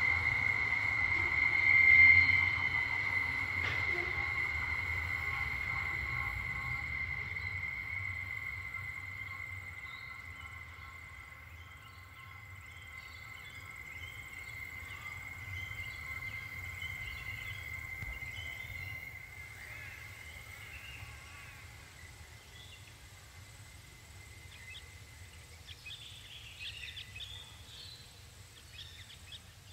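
Freight train wagons moving away round a tight curve: a steady high wheel squeal over a low rumble, fading out about two-thirds of the way through. Birds then call in short, scattered chirps.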